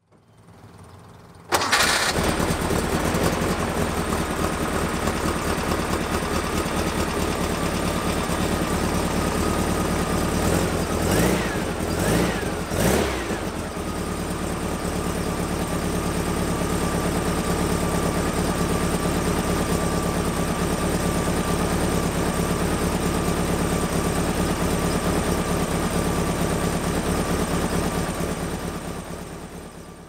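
1967 VW bus's air-cooled flat-four engine being cranked and catching about a second and a half in, then running with its belt-driven air-conditioning compressor fitted. Two or three quick revs come around the middle, then it settles into a steady idle and fades out near the end.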